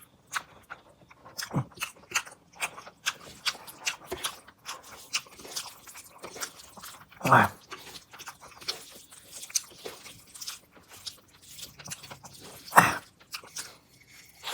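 A person chewing a mouthful of rice and fish curry close to the microphone: a steady run of quick wet clicks and small crunches, with two louder wet mouth sounds, one about halfway through and one near the end.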